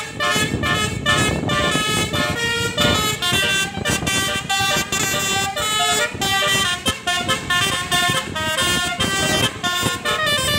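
Bus basuri (telolet) horn, a multi-trumpet air horn, playing a tune in quick stepped notes, over the low rumble of the moving vehicle.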